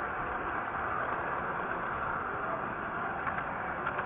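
Model trains running on the layout: a steady rolling rumble of wheels on track, with a light click or two near the end.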